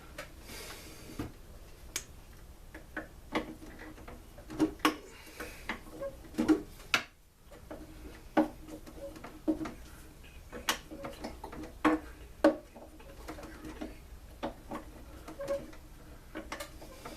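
Hand tools and small metal engine parts clicking and clinking against each other and the bench while the blower engine is taken apart, in irregular sharp clicks with a few quick clusters.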